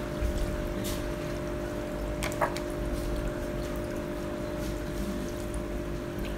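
Water trickling and splashing as tilapia fingerlings are scooped by hand from a plastic basket standing in a tank, with a few brief splashes about a second in and again midway. A steady low hum runs underneath.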